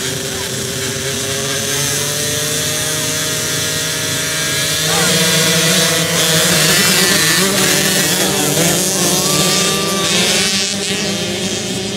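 A pack of 50cc youth dirt bikes running on the start line, then revving hard and pulling away together about five seconds in, the engine noise rising in pitch and getting louder as they launch.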